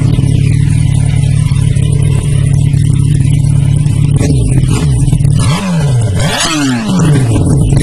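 Yamaha FZ1's inline-four engine running through a Mivv Suono slip-on silencer, holding a steady note, then revved in three quick throttle blips near the end, the pitch dropping back after each.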